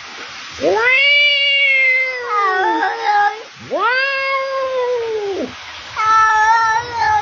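Domestic cat giving three long, drawn-out meows in a row, each rising and then falling in pitch.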